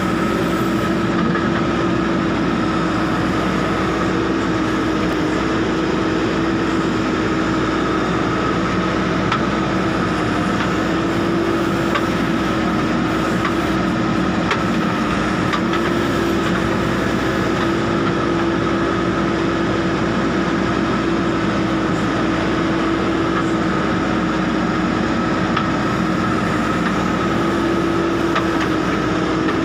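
JCB backhoe loader's diesel engine running steadily under load, heard from inside the cab, with a steady high whine on top. The engine note rises slightly a few times as the backhoe digs and loads soil.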